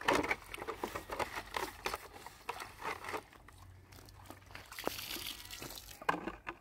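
Hands rubbing and scrubbing in a plastic basin of water, with small scrapes and clatters. About two-thirds of the way in the basin is tipped and the water splashes out onto the ground.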